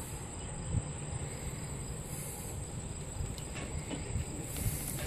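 Steady low rumble as a rope tied around a golf ball under the skin pulls a deer's hide off the carcass, with a few faint cracks near the end.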